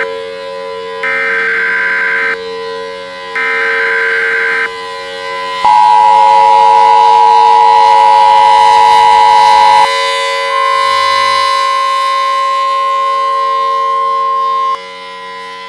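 Emergency Alert System tones: three short bursts of screeching data tone, then the two-tone attention signal for about four seconds, then a single steady tone for about four seconds, all over a steady lower tone.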